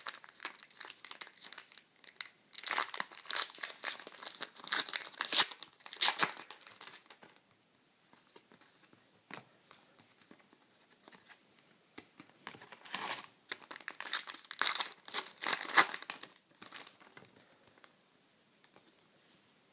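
Trading-card pack wrapper crinkling and being torn open by hand, in two spells of crackling with quieter handling between.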